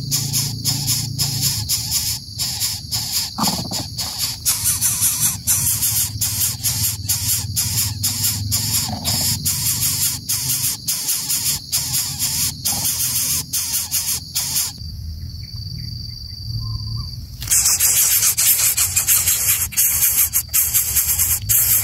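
Dense insect chorus, a high-pitched buzz pulsing many times a second. It drops out about fifteen seconds in and comes back louder a couple of seconds later.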